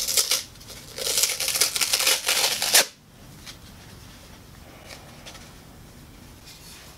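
Hand abrasive rubbed over a wooden chair part: a short scratchy burst, then about two seconds of quick rubbing strokes that stop abruptly.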